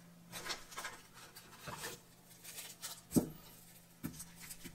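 Light paper rustling and soft taps as small wrapped tablet packets are set down on a printed paper sheet, with a sharper tap about three seconds in.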